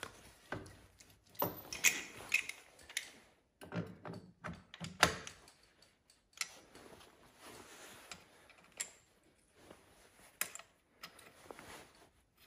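Irregular light metal clinks and knocks as motorcycle steering-head parts are handled and the top triple clamp is fitted over the steering stem, the loudest knock about five seconds in.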